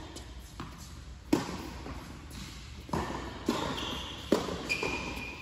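Tennis balls struck by rackets and bouncing on an indoor hard court during a rally, echoing in the hall. Sharp pops about a second in and again near four seconds, with softer hits and bounces between. A couple of short high shoe squeaks on the court come in the second half.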